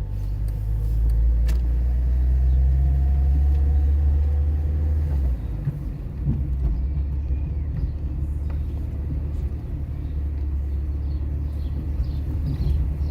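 A car driving, a low engine and road rumble that swells over the first few seconds and drops off suddenly about five seconds in, then carries on more evenly.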